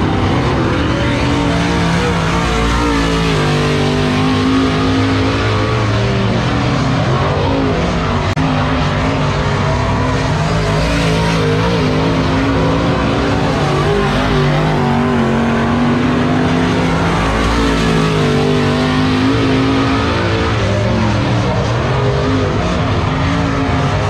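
Several dirt late model race cars running laps together, their engines overlapping and rising and falling in pitch as they lap the track.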